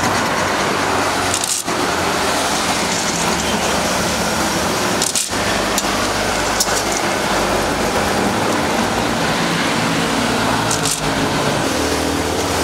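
Motor-driven meat-grinder-type sambal pecel grinder running steadily, its belt and pulley turning as fried peanuts are crushed through the screw and plate. The noise is even throughout, with a few very brief breaks.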